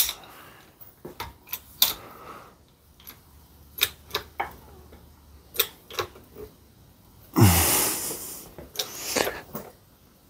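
Light metal clicks and taps, scattered irregularly, as a harmonic balancer's hub and outer ring are handled and lined up under a hydraulic bottle-jack press. About seven seconds in there is a louder, longer rushing noise that opens with a quickly falling tone, and a shorter one follows about a second later.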